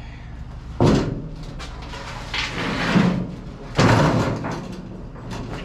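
Two loud knocks about three seconds apart, each ringing out briefly, with scraping and handling noise between them.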